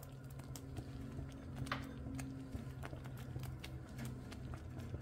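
Thick rice pudding cooking in a copper pan and being stirred with a wooden spoon: scattered small irregular clicks and plops over a steady low hum.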